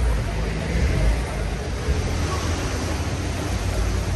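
Steady city street noise on a wet, windy day, carried by a deep rumble of wind on the microphone and passing traffic.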